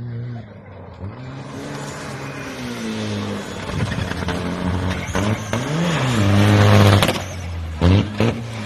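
Rally car engine coming closer under hard acceleration, its pitch climbing and dropping with each gear change and loudest about seven seconds in, followed by a few sharp cracks near the end.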